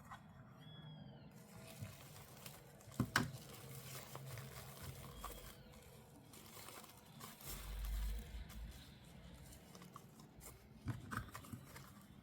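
Toy packaging being handled during an unboxing: plastic and cardboard crinkling and tearing, with scattered sharp clicks. A dull low bump comes about two-thirds of the way through.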